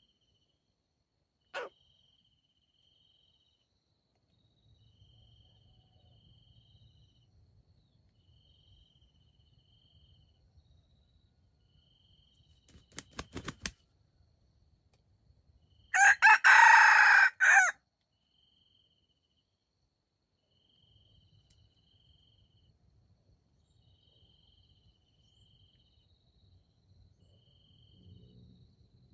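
A red junglefowl rooster crows once about halfway through, a short, clipped crow of under two seconds. A quick run of clicks comes a few seconds before it, and faint chirps repeat about once a second throughout.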